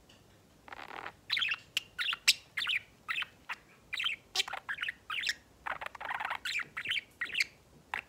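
Pet budgerigar chattering: a quick run of short, high chirps and warbles that starts about a second in and goes on almost without a break.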